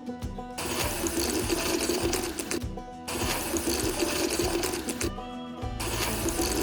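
Whirring of a small electric motor, like that of a miniature model machine, under background music, broken by brief gaps twice.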